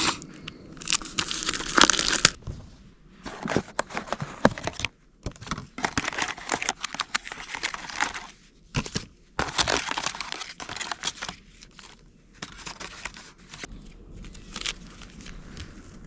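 Plastic packaging of a microwaveable kimchi fried rice being handled and opened: irregular crinkling and rustling with tearing sounds.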